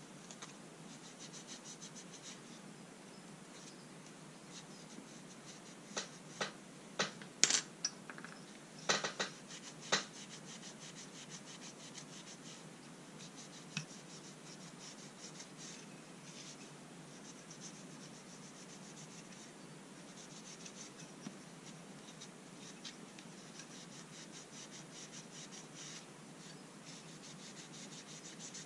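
Alcohol wipe rubbed over small painted steel parts, a fast scratchy rubbing. A cluster of sharp clicks and knocks comes between about six and ten seconds in.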